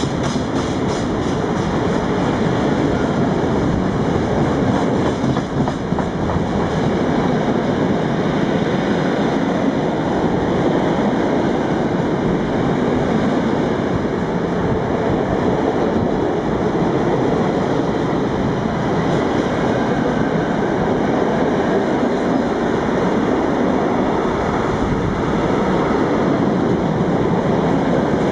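Container freight train's loaded flat wagons passing close by at speed: steady, loud noise of wheels running on the rails, with no let-up.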